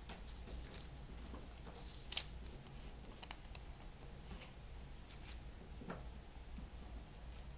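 Hands handling a compact disc and its paper insert on a cloth surface: scattered light rustles and small taps, the sharpest about two seconds in, over a faint low hum.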